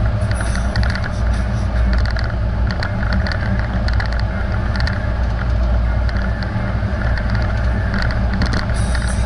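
Car driving at highway speed, heard inside the cabin: a steady low road and engine rumble with scattered light ticks.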